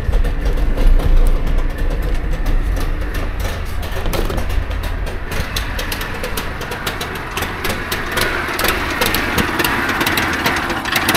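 Trabant 601's two-cylinder two-stroke engine idling steadily, louder toward the end. It is running on a freshly cleaned carburettor whose idle screw has just been turned out, and the idle is still not right.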